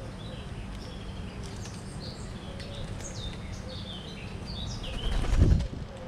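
Small birds chirping throughout in short, high, falling notes over a steady low rumble. About five seconds in comes a loud, brief flurry of wingbeats at the feeder.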